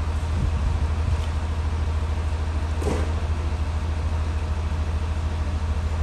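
Fire truck's engine running steadily with a deep hum, powering the raised aerial ladder platform. A brief knock sounds about three seconds in.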